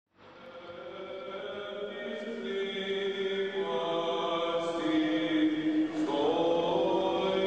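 Greek Orthodox liturgical chant: voices singing long, slowly changing held notes, fading in at the start.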